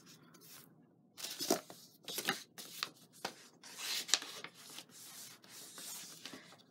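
Card stock and tissue paper rustling and crinkling as they are handled, in short, irregular bursts with a few sharp ticks.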